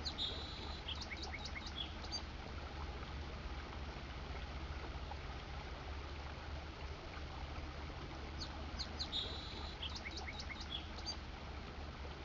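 A songbird sings a short phrase of high notes and a quick trill, once near the start and again about eight seconds later, over a steady low hiss and hum.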